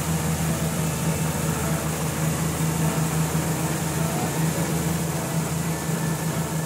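Cartoon snowmobile engine sound effect: a steady hum that holds one pitch throughout.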